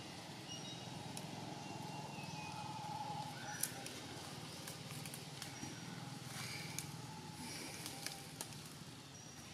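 Dry leaf litter and twigs crackling as macaques move about on the forest floor, with a few sharp snaps, the loudest about a third of the way in and several more near the end. Faint short high chirps sound now and then in the background.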